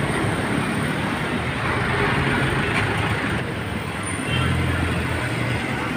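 Street traffic: a steady hum of passing vehicles, with a low engine drone growing a little louder about four seconds in.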